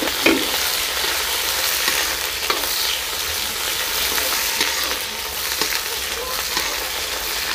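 Onion and garlic sizzling in hot oil in a karahi, stirred with a metal ladle that now and then clicks and scrapes against the pan. This is the tadka (tempering of cumin, fenugreek seeds and curry leaves) being fried for kadhi.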